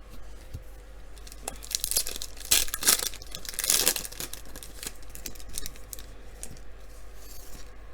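A foil baseball-card pack wrapper being torn open and crinkled, the loudest tearing a second or two in, then lighter crackling as it is handled.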